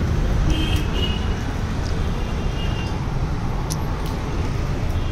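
Steady low background rumble with a few faint short clicks.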